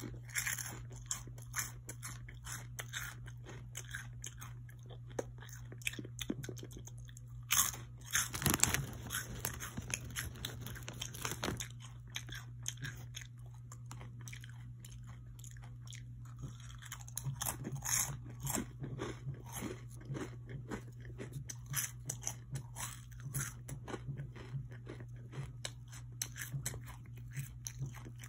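Crunchy Flamin' Hot Funyuns onion-flavored rings being bitten and chewed close to the microphone, a run of sharp crunches that is densest about eight to twelve seconds in.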